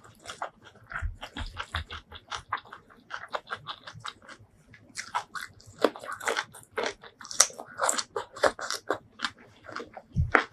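Close-miked chewing and biting of spicy Thai rice noodle salad, with crisp crunches from bites of raw yardlong bean. The crunching grows louder and denser about halfway in.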